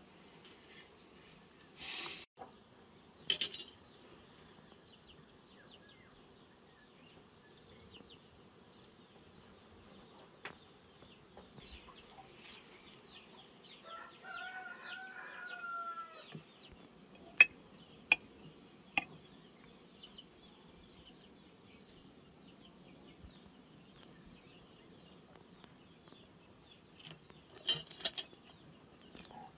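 Chickens: a hen's bending, pitched clucking call lasting about two seconds around the middle, over a faint steady high chirping. A few sharp clicks or knocks come near the start and just after the call, and again near the end; the loudest is just after the call.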